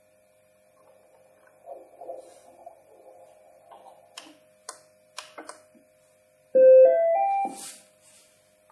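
Scattered handling clicks and knocks, then about six and a half seconds in a loud rising three-note electronic beep tune from a Bistos BT-250 fetal doppler, the kind of chime such a unit plays at power-on. A faint steady electronic tone sits underneath throughout.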